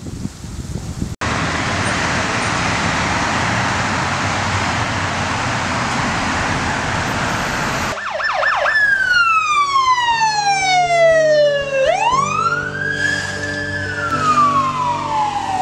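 Emergency vehicle siren wailing: it starts about halfway through with a quick warble, then slowly falls in pitch, rises again, holds briefly and falls. Before it there is a steady rushing noise.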